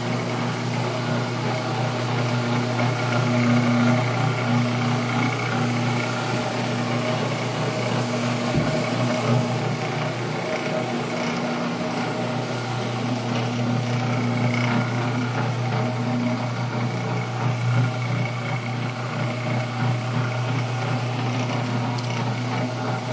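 Rotary floor machine running as it is walked across the carpet scrubbing it: a steady motor hum with an even tone.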